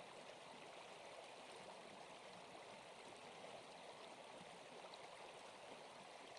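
Near silence: a faint, steady, even hiss with no distinct events.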